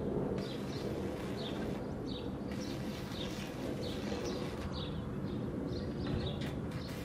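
Electric arc welding on a steel frame: a steady grainy crackle, with small birds chirping one or two times a second over it.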